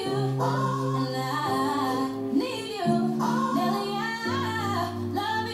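Music: a song with a woman singing a melody over held low chords that change about every second or so.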